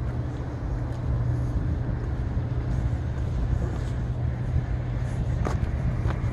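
Steady low engine drone under open-air background noise, with a light click about five seconds in.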